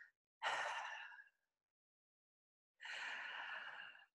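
A woman taking deep, audible breaths, two breaths: one about half a second in and a longer one from about three seconds in.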